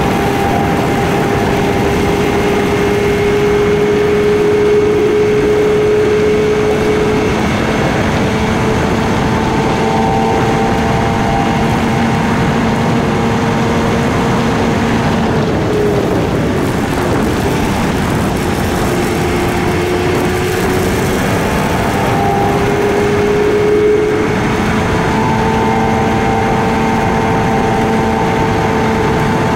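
KTM Duke 250 single-cylinder four-stroke engine running under way, over the rushing noise of wind and road. The engine note holds mostly steady, dips about halfway through, then climbs back.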